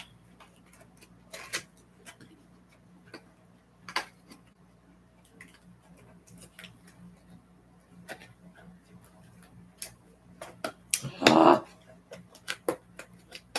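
Scattered small clicks, taps and rustles of packaging and items being handled by hand, with a louder burst about eleven seconds in, over a faint steady low hum.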